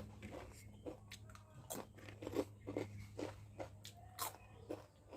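Close-up chewing and mouth smacking of a person eating eggs: a string of short, irregular wet clicks and smacks, several a second, over a steady low electrical hum.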